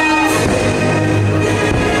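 Electronic music from the fireworks show's soundtrack, loud and steady, with a low held bass note through the middle.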